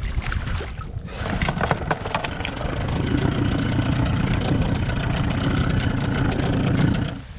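Boat motor running steadily, then stopping abruptly near the end.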